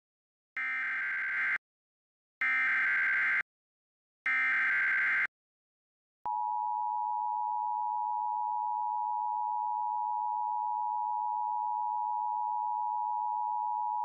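Emergency Alert System activation on an FM radio broadcast: three one-second bursts of SAME digital header data with short gaps between them, then, about six seconds in, the steady two-tone EAS attention signal. It announces the tornado warning that is about to be read.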